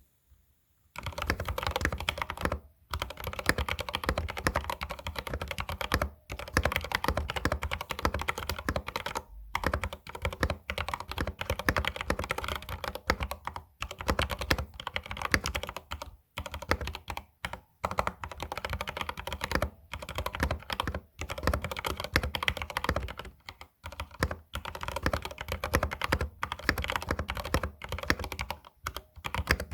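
Fast continuous typing on an Epomaker GK68XS mechanical keyboard: a dense stream of key clicks that starts about a second in, with several short pauses.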